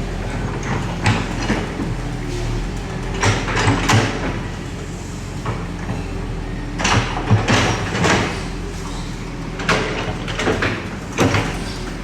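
Bulldozer's diesel engine running steadily, with bursts of metallic clanks and scrapes from its tracks and blade coming in several clusters.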